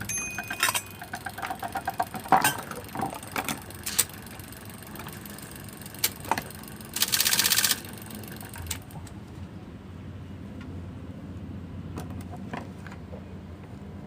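IBM Selectric III electric typewriter mechanism being worked on: scattered clicks and rattles, then one loud rapid clattering burst lasting under a second about seven seconds in. After that comes a steady low hum of the running motor.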